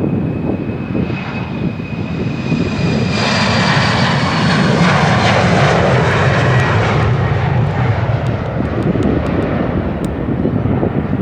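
Jet airliner passing close by, its engine whine slowly falling in pitch as it goes past and its roar loudest in the middle, with strong wind buffeting the microphone.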